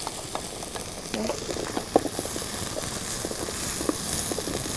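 Diced onion sizzling in hot oil in a frying pan, stirred with a wooden spoon that gives short clicks and scrapes against the pan. The sizzle grows louder about a second in.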